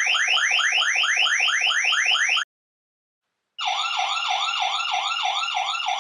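Electronic visitor-entry chime sounding siren-like alarm tones. A fast, repeated rising sweep stops about two and a half seconds in. After a pause of about a second, a different, lower warbling tone pattern follows.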